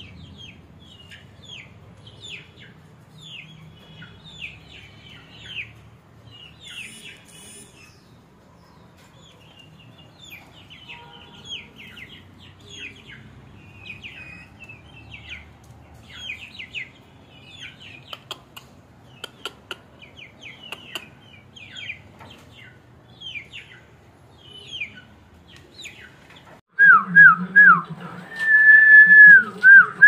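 Faint chirping of small birds, many short downward chirps in quick succession. Near the end comes a loud run of whistled notes, some short and some held, rising and falling, from a person whistling.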